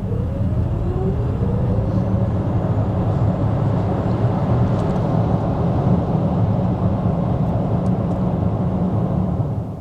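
Mercedes-Benz EQC electric SUV accelerating hard from a standstill. A faint motor whine rises in pitch over the first couple of seconds under loud tyre and road rumble, which builds and then holds steady until it cuts off near the end.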